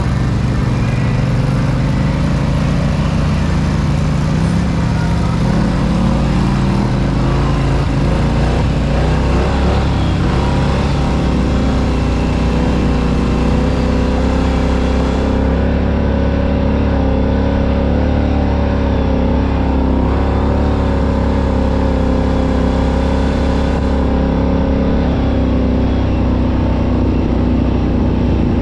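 Off-road vehicle engine running steadily, its pitch climbing a little over the first several seconds and then holding.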